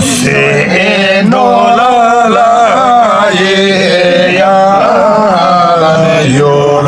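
Men singing a Hyolmo (Yolmo) folk song together in a chant-like style, in long held notes that waver and bend in pitch.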